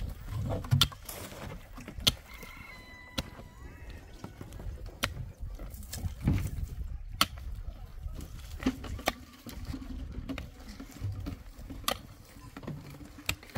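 A short-handled digging tool striking stony soil again and again, making sharp, irregular knocks about once every second or so.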